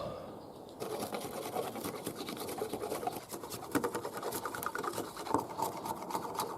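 Rapid scratchy scraping strokes on a wooden stick being worked into a hand-drill spindle, starting about a second in and running on quickly and unevenly.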